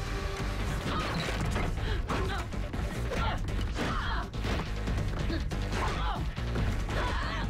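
Fast hand-to-hand fight: a quick series of sharp blows, pole strikes and body impacts, over a low, steady film score.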